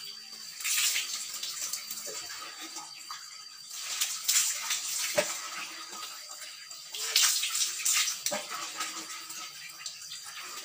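Water poured from a plastic hand dipper over the head and long hair, splashing down, three pours about three seconds apart. Quieter sloshing comes between the pours as the dipper is refilled from a bucket, and there is a light knock about halfway through.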